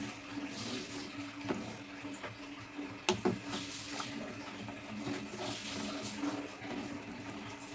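Slotted plastic spoon stirring watery rice porridge with chicken feet in a metal pot: liquid sloshing, with a few clicks of the spoon against the pot, the loudest about three seconds in. A steady low hum runs underneath.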